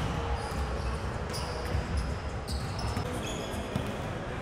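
Basketballs being dribbled on a hardwood gym floor, an irregular patter of bounces from several balls, with a few short high squeaks.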